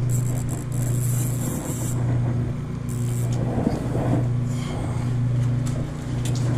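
Steady low hum of road traffic crossing the concrete bridge overhead, swelling and easing slightly. Brief scraping and handling noises come near the start and again around the middle.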